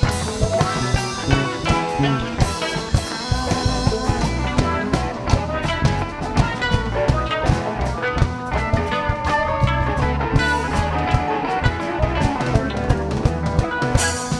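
Live rock band playing an instrumental jam: electric guitars over bass and a drum kit keeping a steady beat.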